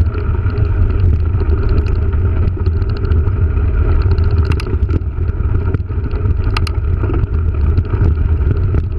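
Mountain bike rolling along a rough dirt track, its knobby tyres and frame rattling over the bumps, under a heavy rumble of wind on the camera's microphone. Two sharp clicks of the bike come through, about four and a half and six and a half seconds in.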